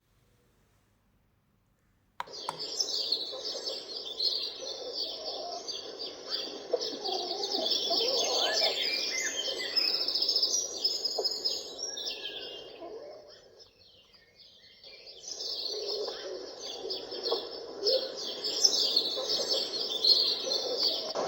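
Recorded birdsong nature sound played through an alarm clock lamp's small speaker, switching on suddenly after about two seconds of silence, with dense chirping that fades out briefly about two-thirds through and then resumes.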